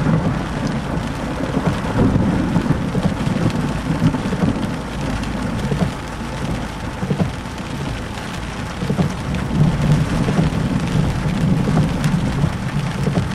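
Thunder from a lightning strike, a low rumble that swells and fades several times, over the steady hiss of heavy rain.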